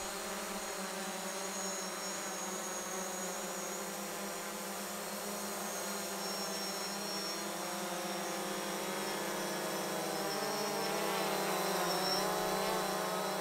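Propellers of a small quadcopter camera drone running with a steady buzzing whine, made of several tones that waver slightly in pitch about three-quarters of the way through.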